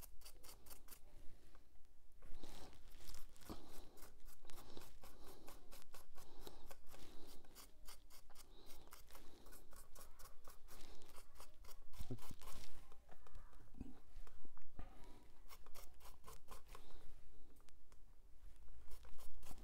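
Stiff paintbrush dabbing and scrubbing over the textured foam stonework of a model viaduct, working in thin filler or paint: a quick, irregular run of short scratchy strokes.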